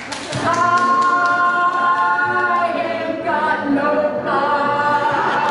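A woman singing long held notes in three drawn-out phrases.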